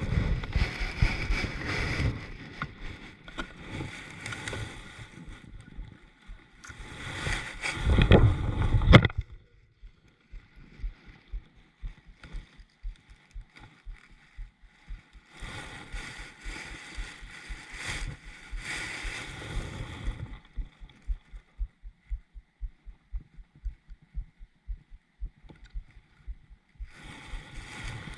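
Water lapping and sloshing against a kayak hull, with rustling and knocking on the boat. It is loudest about eight to nine seconds in, and in the second half there are short low knocks about twice a second.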